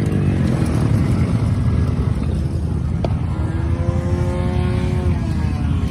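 Small off-road vehicle engine running steadily, with a higher engine tone rising and holding for about two seconds past the middle, as if revved.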